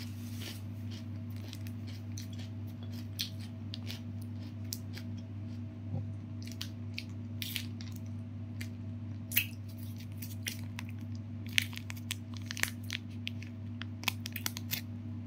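Close-up eating sounds: chewing of crunchy fried chicken, with lip smacks and mouth clicks, over a steady low hum. Near the end comes a quick run of crinkles and tearing as a plastic ketchup sachet is torn open.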